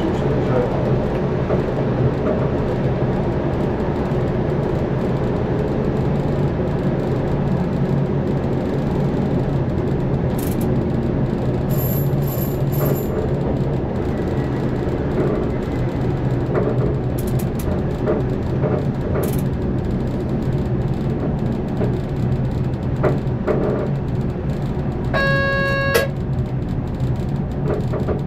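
Electric passenger train running, heard from the driver's cab: a steady rumble and motor hum with occasional clicks from the track. Near the end a single-pitch horn-like tone sounds once for about a second.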